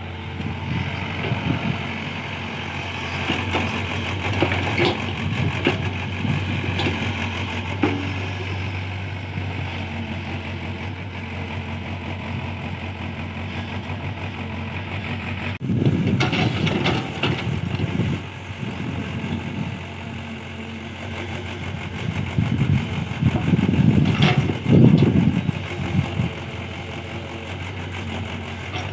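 Hyundai 80 SMART excavator's diesel engine running steadily as it works, growing louder and rougher twice: for a couple of seconds about halfway through, and again for a few seconds near the end.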